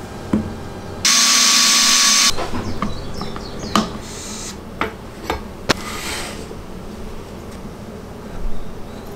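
Workshop handling sounds: a loud, even hiss lasting just over a second near the start, then a few sharp knocks as a wooden piece and a steel ruler are set down on a plywood jig base, and short scratchy strokes of a felt marker drawing along the ruler.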